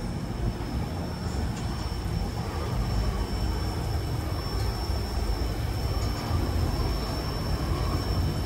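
Passenger train rolling along the track, a steady rumble of wheels on rails heard from the open platform outside the car.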